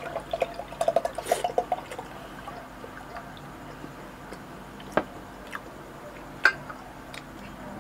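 Pineapple juice glugging out of a can into a glass mason-jar mug in quick gurgles for the first couple of seconds, until the pour stops. Later come two sharp clicks, the second the louder.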